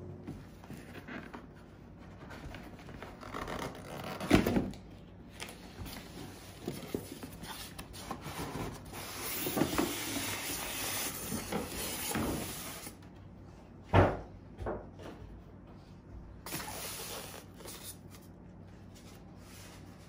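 Cardboard box and styrofoam packing being handled as a boxed model is unpacked: sliding and rubbing, with two sharp knocks, one about four seconds in and a louder one near fourteen seconds.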